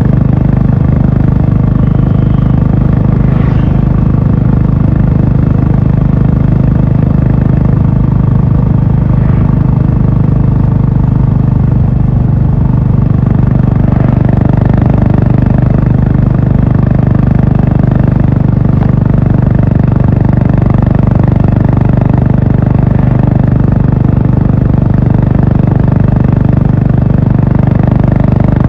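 Honda H'ness CB350's single-cylinder engine and exhaust running steadily while the motorcycle is ridden, holding an even pitch.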